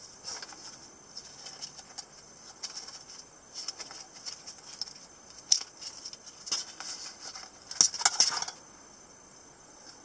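Handling noise from a black nylon knife sheath: scattered clicks of its plastic side-release buckle and rustling fabric as the flap is opened, with a denser burst of scraping and clicking near the end as the knife is pulled out.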